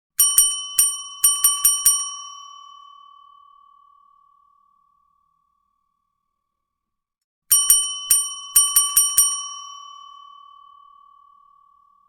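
Service desk bell struck rapidly about eight times in a nervous flurry, its ring fading over a couple of seconds. After a pause of about three seconds a second flurry of strikes follows, ringing on near the end.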